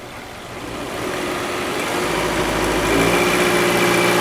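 2012 Subaru Forester's flat-four boxer engine, drive belt removed, brought up from idle and held steady at about 1500 rpm, getting louder over the first three seconds and then holding. It carries the small metallic rattle that sets in from 1500 rpm when the engine is hot, which the mechanics take for detonation (pinging).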